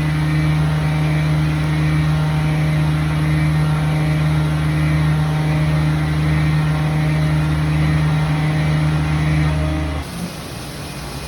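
Hurco VM One CNC mill cutting P20 tool steel: a loud, steady machining hum with a strong low tone. It stops abruptly about ten seconds in, leaving a quieter hiss.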